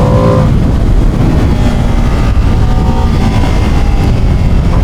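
Ducati Panigale motorcycle engine and exhaust under way, running at a fairly steady pitch after easing off slightly at the start, over heavy wind rumble on the microphone.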